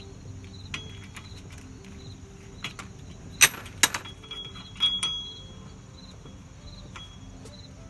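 A few sharp metallic clinks, the loudest two about three and a half seconds in, from a 14 mm socket and extension working on the Camry's rear hub bolts, over crickets chirping steadily in the background.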